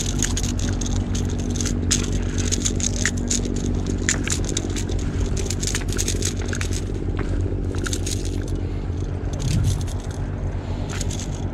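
Scattered clicks, crunches and scrapes of footsteps and handling on loose rocks, over a steady low engine hum.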